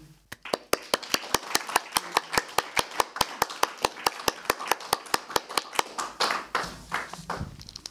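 A small audience applauding, with individual claps coming at about five a second and thinning out near the end.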